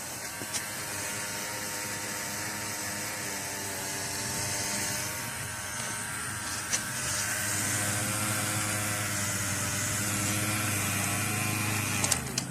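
Small electric DC motor of a homemade toy boat running on a mobile-phone battery, a steady whine that cuts off abruptly near the end.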